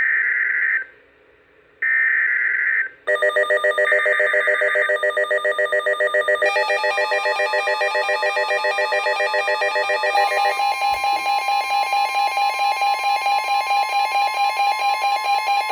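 Emergency Alert System weather-radio alert: two short buzzy bursts of digital header data, then from about three seconds in a third burst under a loud, rapidly pulsing electronic alarm that shifts pitch twice. It signals that a severe thunderstorm warning is being broadcast.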